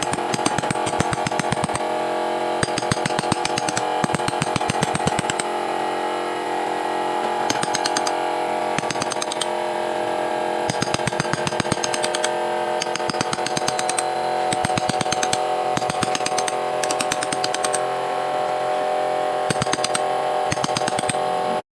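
Power carving tool running with a steady whine and a rapid stream of sharp taps as it works wood.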